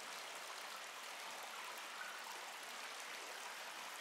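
Faint recorded ambience of running water, a steady trickling hiss with fine patter, laid in as the intro to an ambient music track before the instruments come in.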